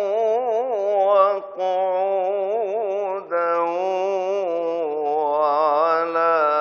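Male voice reciting the Quran in slow, melodic tajwid chant, drawing each word out in long ornamented notes with a wavering pitch. There are brief breaks for breath about a second and a half in and again just past three seconds.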